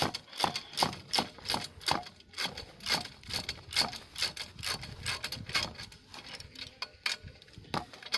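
Socket ratchet wrench clicking in repeated short strokes while a nut on a tricycle's rear axle is worked, about two to three sharp clicks a second.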